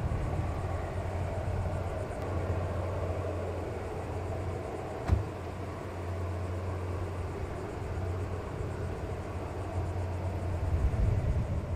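Steady low drone of a running engine, with a short knock about five seconds in. A car approaching on the road grows louder near the end.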